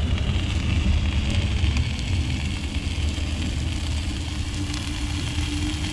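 Boat engine running, a steady low rumble.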